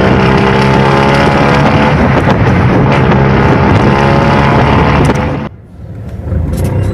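A Beccar Urbus bus's engine running loud and steady with a strong humming note. About five and a half seconds in, the sound drops away abruptly to a low rumble, which then builds back up.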